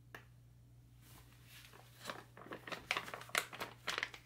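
Plastic-laminate retort pouch crinkling and crackling as it is handled and squeezed over the food tray. The sound starts about a second and a half in and grows busier toward the end.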